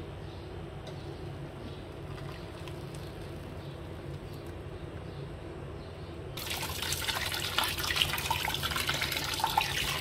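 Cooked sago pearls and their starchy cooking water poured from a pot into a perforated stainless-steel strainer in a steel sink: a sudden loud splashing pour that starts about six seconds in, after a stretch of faint low hum.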